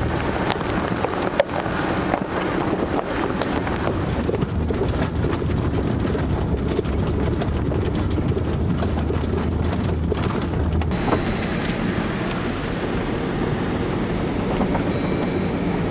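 Jeep driving, heard from inside the cabin: a steady low engine and road rumble with wind noise. The rumble drops away about eleven seconds in.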